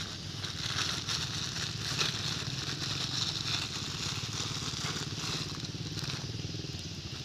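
Clear plastic bag crinkling and crackling as a hand handles and picks it up, with small irregular crackles over a steady background hiss.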